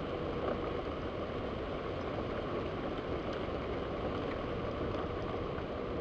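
Steady rushing of heavy rain in a severe thunderstorm, heard from behind a window, with a faint hum that comes up near the end.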